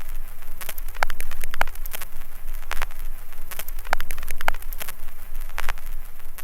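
Glitching radio static: a crackling hiss broken by irregular sharp pops and clicks, over a low steady hum.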